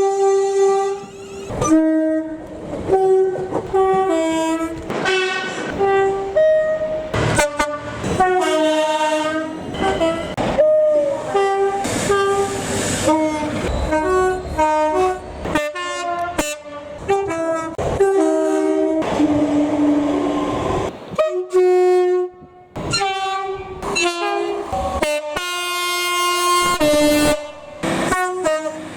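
Train horns sounded over and over in dozens of short blasts, switching back and forth between a few different notes. Around two-thirds of the way through there is a brief stretch of rumbling rail noise between the blasts.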